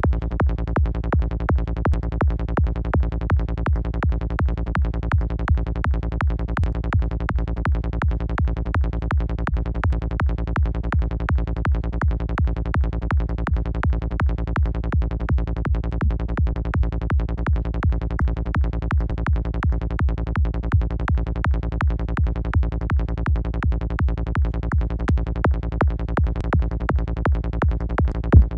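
Psytrance kick-and-bass loop from the KickNBassGel software synth in the key of A sharp, a punchy kick pulsing evenly at about 165 beats per minute over a deep sub-bass. The kick is being shaped as it plays, with its multiband high and mid gain set for distortion.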